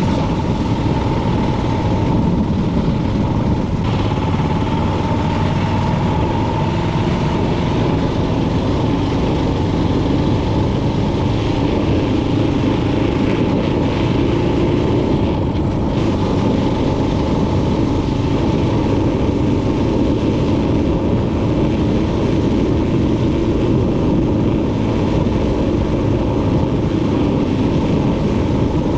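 Motor vehicle engine running steadily at an unchanging level, without pauses or changes in pitch.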